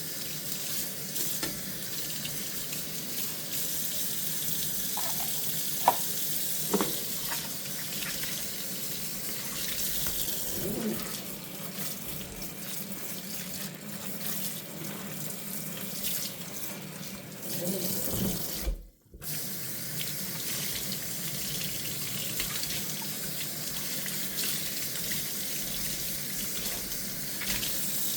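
Kitchen tap running into a sink while dishes are washed by hand, with a couple of sharp clinks of dishware about six seconds in and a brief break in the water sound about two-thirds of the way through.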